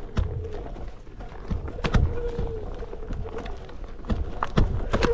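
Onewheel electric board's hub motor whining faintly, its pitch rising and falling a little with speed, under irregular sharp knocks and clacks as it rolls over the rough dirt trail, with a low rumble throughout.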